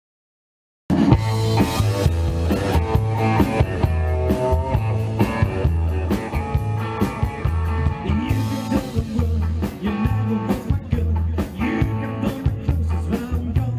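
Silence, then about a second in, a live rockabilly band cuts in mid-song: upright double bass keeping a steady walking line, electric guitar, saxophone and drums, with a male singer's vocal.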